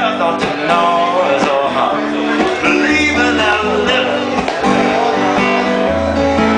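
Live music: a strummed acoustic guitar playing sustained chords with other instruments, with no lyrics sung.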